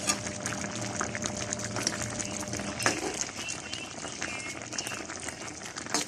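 Creamy chicken-and-mushroom sauce bubbling at a simmer in the pan: a steady, dense crackle of small pops.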